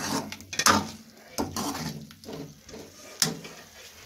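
Steel spoon scraping and knocking against a karahi while stirring chicken masala being roasted, a handful of short scrapes about a second apart, fading near the end.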